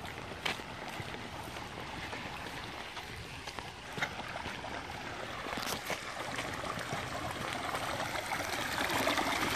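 Floodwater running down a street and along the curb, a babbling stream-like flow of water that grows louder near the end.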